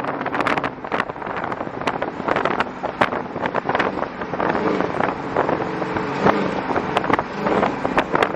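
Chrysler 300 with long-tube headers and high-flow cats running under way, its exhaust heard from inside the car. Wind rushes over the microphone, with many sharp crackles.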